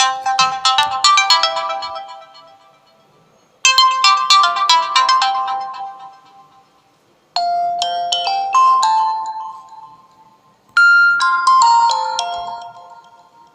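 A Nokia Lumia 925 stock ringtone playing: four short bright electronic chime phrases about three and a half seconds apart, each fading out. The first two are quick runs of notes, and the last two are slower with held notes.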